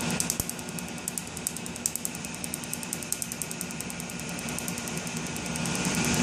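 Tattoo-removal laser handpiece firing pulse after pulse onto the skin: a rapid, even train of sharp snapping clicks, one per pulse, over a low steady hum. A rushing noise grows louder near the end.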